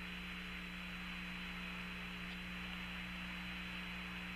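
Open Apollo 14 air-to-ground radio channel between transmissions: a steady hiss of static with a low, even hum.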